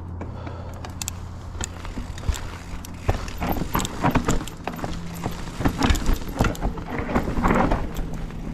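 Mountain bike clattering over rough, rooty ground: a jangling rattle with many sharp knocks, growing louder and busier about three seconds in, over a steady low hum at the start.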